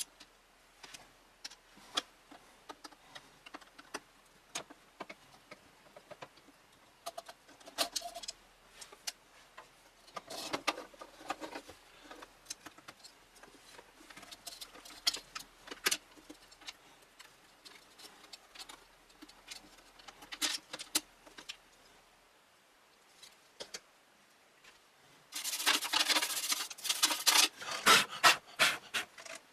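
Scattered clicks, taps and short rattles of small hardware being handled, with a louder burst of jangling clatter near the end, like screws or small parts being shaken or rummaged through.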